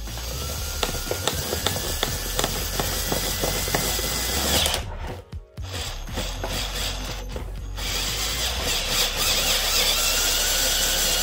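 Cordless drill with a 2-inch hole saw cutting through a plastic trim panel, the motor whine rising as the saw bites, with a rattle of chattering teeth. It stops briefly about five seconds in, then runs again.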